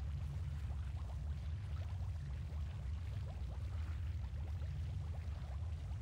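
Cartoon sound effect of a steady deep rumble with many small bubbling pops over it, like thick liquid boiling: the sound of the fox demon's chakra cloak seething.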